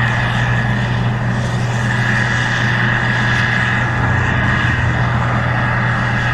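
Case IH 2388 Axial-Flow combine running steadily while harvesting corn: a low engine drone with a steady high whine over it.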